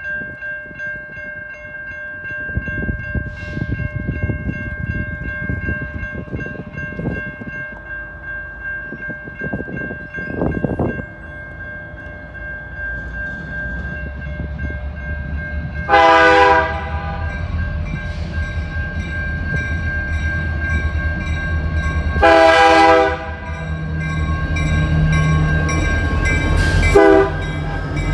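Level-crossing warning bell ringing steadily as a CN diesel freight locomotive approaches. The locomotive's horn sounds two long blasts, a little past halfway and again about six seconds later, then a short one near the end: the standard crossing signal. Its engine rumble grows louder as it nears.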